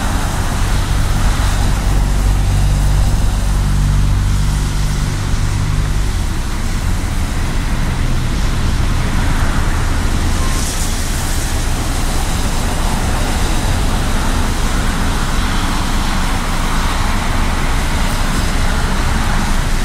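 Steady road traffic noise, with a heavy vehicle's low engine rumble in the first six seconds that then fades into an even wash of traffic.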